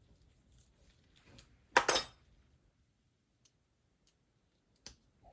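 Two sharp clicks in quick succession about two seconds in, small hard objects clinking as they are handled on a desk, then a lighter click near the end.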